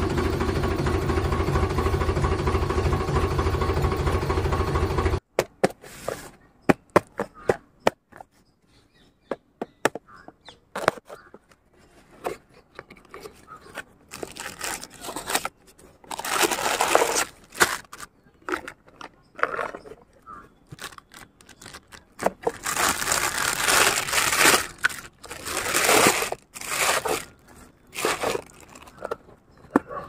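A steady engine-idle sound cuts off suddenly about five seconds in. After it come scattered clicks and bursts of cardboard and plastic wrapping rustling, crinkling and tearing as a plastic toy tractor is unpacked from its box.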